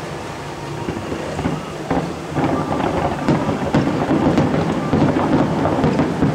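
Fireworks bursting in quick succession, many sharp bangs and crackles over a low rumble, growing denser and louder about two seconds in.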